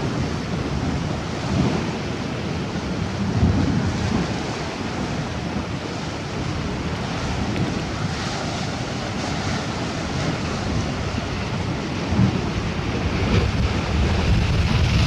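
Sea waves washing on the shore, with wind gusting across the microphone in irregular low rumbles.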